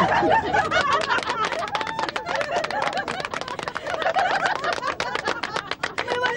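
A small group of women clapping their hands, a fast, irregular patter of claps, with laughter and voices over it.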